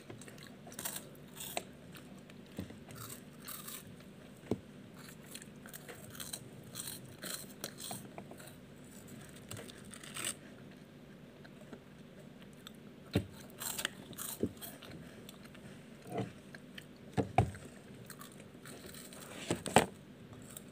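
Chocolate wafers being bitten and chewed, with scattered crunches, crackles and clicks and a few sharper snaps.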